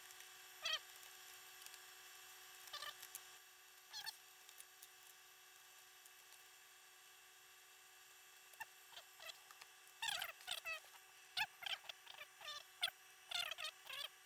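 Scattered short clicks and squeaky scrapes of plastic laptop parts being handled and pried during disassembly, a few early on and a quick cluster of them from about ten seconds in, over a faint steady hum.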